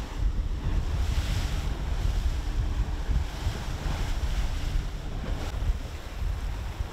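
Boat running at speed over open sea: heavy wind buffeting on the microphone and water rushing past the hull, over a steady hum from twin 150 hp outboard motors.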